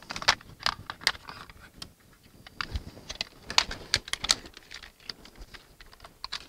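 Irregular clicks and light rattles of a small SDR receiver and its cables being unplugged and handled, in two bursts with a lull between.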